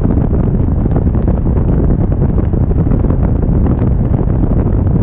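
Steady rush of wind buffeting the camera microphone during tandem paraglider flight, a loud, even low rumble.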